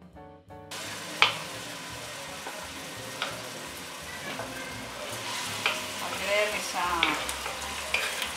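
Chopped onions sizzling in olive oil in a pot while being stirred, with a few sharp knocks of the spoon against the pot.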